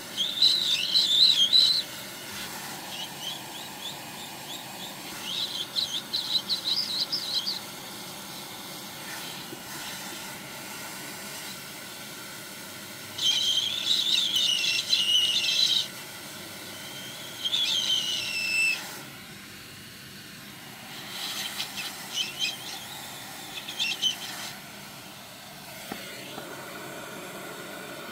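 Hot air rework gun blowing steadily over a circuit board as a surface-mount chip is heated off it, with about five loud bursts of high, bird-like chirping over the top.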